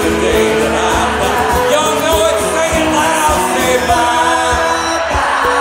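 Live country-rock band playing: strummed acoustic guitars and drums under a lead singer, with a steady beat.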